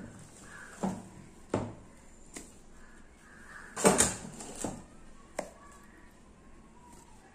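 A spoon knocking against steel as thick ground urad dal batter is scooped into a steel bowl: about six sharp knocks, the loudest a quick double knock about four seconds in.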